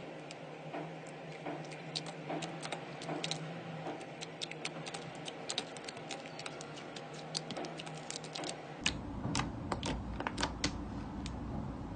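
Slime being pressed and worked, giving many irregular sharp clicks and pops. A low rumble joins in about nine seconds in.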